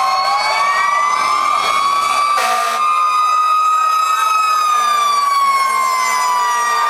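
Several fire truck sirens wailing at once, their overlapping pitches slowly rising and falling as the trucks pass. A short hissing burst comes about two and a half seconds in.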